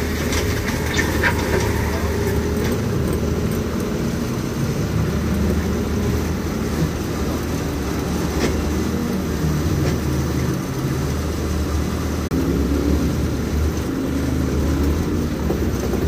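Compact track loader's engine running steadily as the machine drives on its tracks, carrying a large boulder in its grapple bucket.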